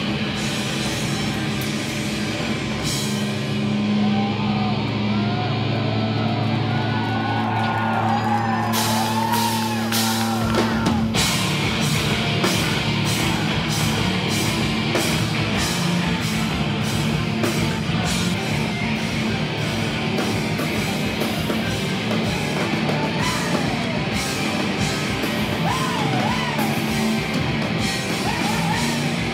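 Live rock band playing loud: distorted electric guitars, bass and drums with a singer. About three seconds in the drums drop away, leaving held guitar and bass notes under the sung line, and about ten seconds in the full band with drums comes crashing back in.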